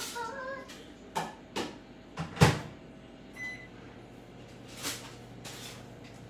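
Kitchen clatter: about seven sharp knocks and bumps of things being handled and set down, the loudest about two and a half seconds in.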